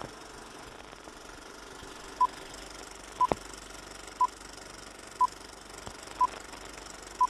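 Film countdown leader beeping: six short beeps of the same pitch, one each second, starting about two seconds in, over a steady background hiss, with a single sharp click near the middle.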